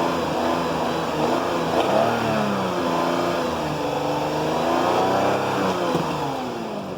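The 2.5L V6 engine of a 2008 Lexus IS250 is being revved up and down several times, its pitch rising and falling, and the revs drop away near the end. The engine has just had CRC valve cleaner sprayed into the intake, and the owner reports that this made it knock.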